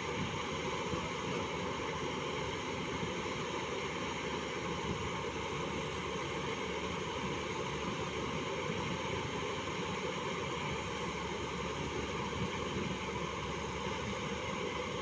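JCB 205 tracked excavator's diesel engine running steadily under hydraulic load while the machine works its boom and bucket to climb down off a lowbed trailer.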